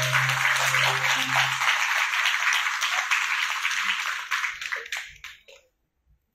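Audience applauding, with a low held note from the music dying away under it in the first two seconds. The applause thins out and stops about five seconds in.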